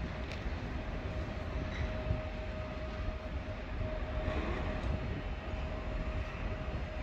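Train running on the tracks: a steady low rumble with a constant, unchanging whine over it.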